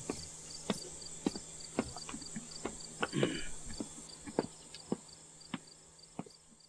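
Footsteps on a hard surface, roughly two steps a second, growing fainter as the walker moves away. Under them is a steady, pulsing insect chirping.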